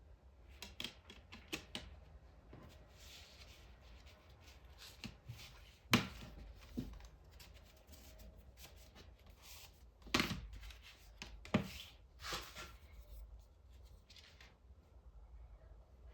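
Handling of a cardboard CD digipak: rustling and rubbing of card and paper, with scattered clicks and a sharp tap about six seconds in, and further clicks near the ten- and eleven-second marks.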